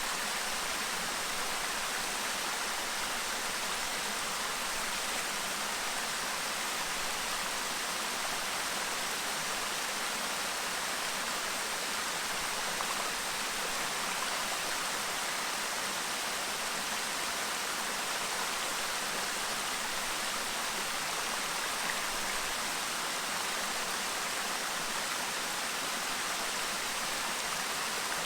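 Clear river babbling: a steady, even rush of flowing water.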